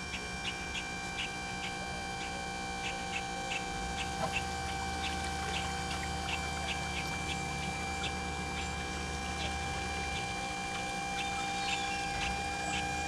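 Hydraulic pump of a Sunstream SunLift boat lift running with a steady whine as it raises the loaded cradle out of the water, with a light ticking about three times a second over it.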